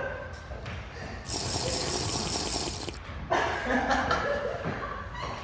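A steady hiss lasting under two seconds, followed by voices.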